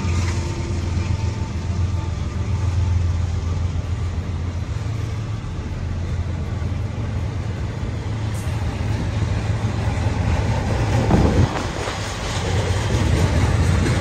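Florida East Coast Railway intermodal freight cars, carrying double-stacked containers and truck trailers, rolling past on the rails: a steady rumble of steel wheels on track, with one louder knock about eleven seconds in.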